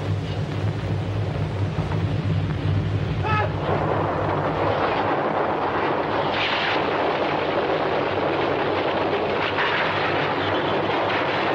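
Earthquake sound effect: a low rumble that builds, about three and a half seconds in, into a steady roar of shaking and falling debris. A louder crash comes about six and a half seconds in.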